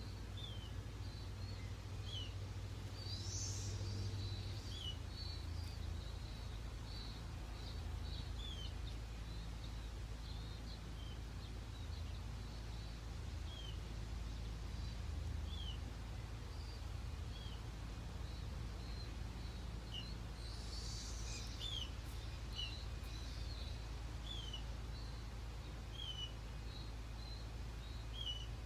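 Say's Phoebes calling: short, high, downslurred notes repeated every second or two, with fainter chirps above them, over a steady low rumble.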